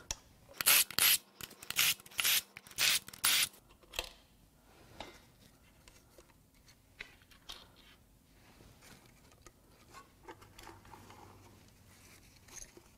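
Hand ratchet clicking in quick swings as the engine's connecting-rod cap bolts are run out, about six bursts in the first three and a half seconds. Then fainter metal clinks and handling sounds as the rod-cap parts are worked loose.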